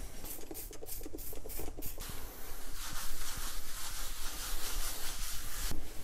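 Paper shop towel wiping a grimy wooden workbench: a few short rubbing strokes, then a steady scrubbing hiss that stops suddenly near the end.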